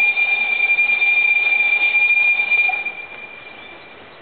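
Steam whistle of the Px48-3916 narrow-gauge steam locomotive, one long steady blast that fades out about three seconds in.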